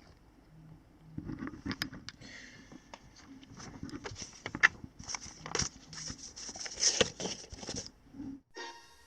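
Paper and packaging being handled: irregular rustling and crinkling with sharp little clicks and knocks. Background music starts near the end.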